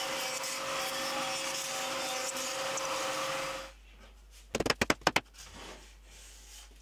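Router on a Pantorouter cutting wood for mortise-and-tenon joinery, with dust extraction running: a steady noise with a constant whine that cuts off about four seconds in. About a second later comes a quick run of about six sharp knocks.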